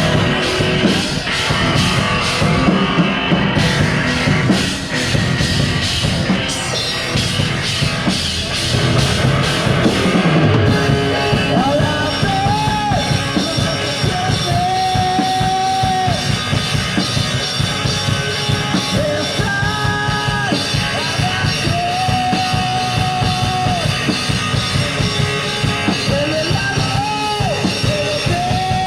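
Live punk rock band playing an instrumental break of the song: drum kit and guitars throughout, with a lead line of long, bending held notes coming in about twelve seconds in.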